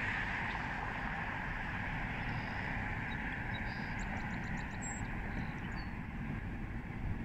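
Outdoor ambience over an open field at dawn: a steady rushing noise with a low, fluctuating rumble, and a few faint high bird chirps near the middle, including one quick run of about six notes.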